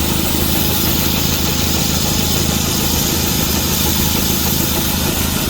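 Antique steam traction engine running steadily, a constant low mechanical hum with no change in pace.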